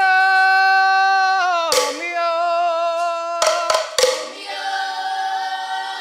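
A voice sings three long held notes, each a little lower than the last. A few sharp handclaps or rattle strikes fall in the gaps between the notes.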